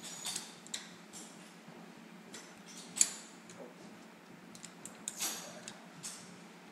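Metallic clicks and clacks from a lever of a 1920s Union Switch & Signal railroad interlocking machine being worked: the thumb latch released and the lever slid over to its stop while the track switch moves. One sharp clack comes about three seconds in, with a cluster of lighter clicks about five seconds in.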